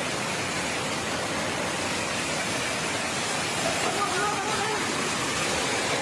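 Fast shallow water rushing over and below a concrete weir: a steady, even hiss of white water. Faint voices come through a few seconds in.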